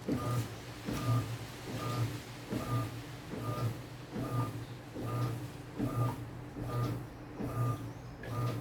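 Electrolux Essential Care 8.5 kg washing machine running a rhythmic cycle that repeats about three times every two seconds, each stroke a low motor hum with a knock and a short high tone.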